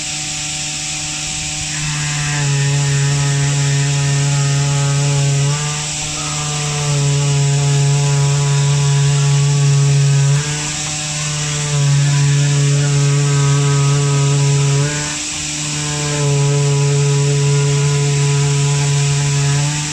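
CNC oscillating knife cutter running, cutting 50 mm foam: a steady mechanical hum over a hiss. It gets louder and softer in stretches of about four to five seconds, with short dips between them.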